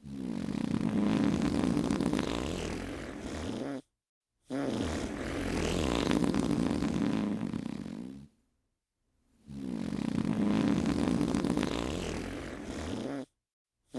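Long human fart sound effect, played three times, each lasting about four seconds with a wavering low pitch. Each one cuts off into dead silence before the next begins.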